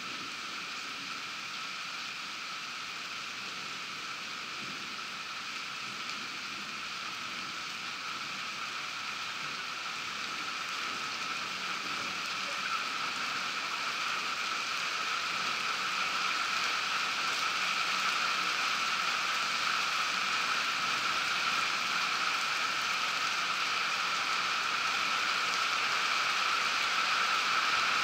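Steady hiss of falling rain, growing gradually louder through the middle.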